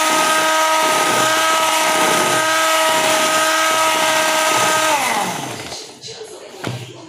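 Electric hand mixer beating cake batter in a bowl, its motor whining at a steady pitch, then switched off about five seconds in, the whine falling as the beaters spin down. A brief knock follows near the end.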